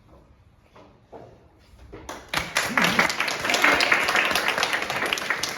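Audience clapping and applauding, starting about two seconds in and carrying on steadily.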